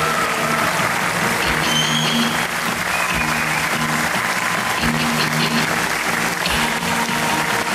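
Show music with a pulsing bass line under a loud, even hiss of audience applause.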